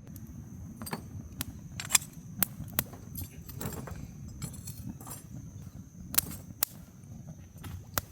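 A series of sharp clicks and clinks, about nine in all, loudest around two seconds in and again near six seconds, over a low rumbling background and a faint steady high tone.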